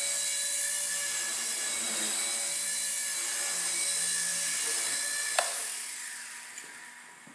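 Blade Nano CPX micro RC helicopter with an Astroid Designs brushless motor flying: a steady high whine of the motor and rotors, then a sharp knock about five seconds in as it comes down onto the concrete floor, after which the whine winds down and fades.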